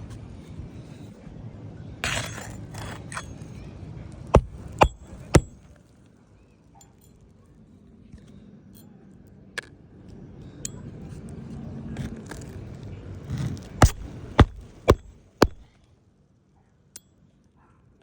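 Hammer driving roofing nails into an asphalt shingle: three sharp strikes about half a second apart, then four more near the end. Scraping and wind noise between the strikes.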